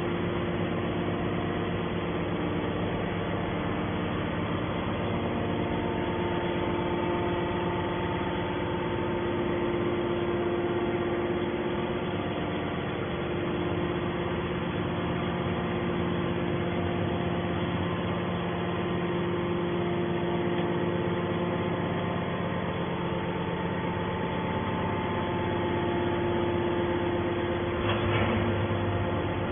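Hydraulic scrap metal baler running: a steady machine drone with several steady tones, unbroken throughout, with a brief sharper sound near the end.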